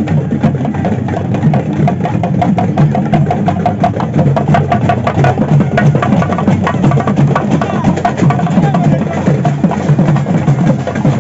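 Festival drums beaten in a fast, unbroken rhythm, with the voices of a crowd underneath.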